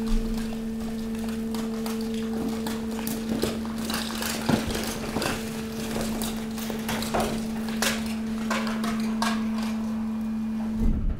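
Hydraulic garbage compactor press running: a steady hum from its hydraulic drive, with irregular knocks, clatter and scraping as rubbish is shoved across the steel floor. The hum cuts off near the end with a thump.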